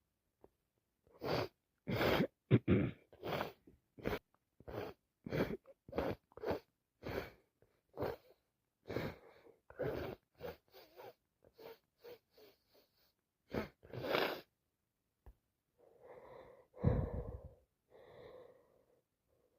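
A sick woman's rapid run of about twenty short, sharp sneezes coming one after another, then a longer, louder, voiced one near the end.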